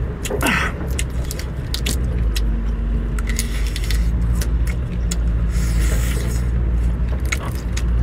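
Shrimp shells cracking and crunching as they are peeled by hand and chewed close to the microphone, many sharp irregular clicks over a steady low rumble.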